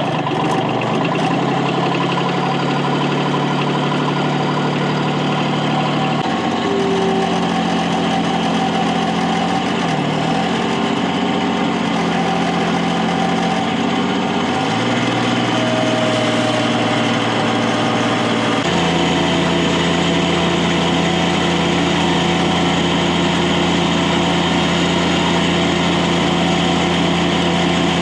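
Bobcat MT100 mini track loader's diesel engine running just after a glow-plug start, its engine speed shifting up and down in steps several times.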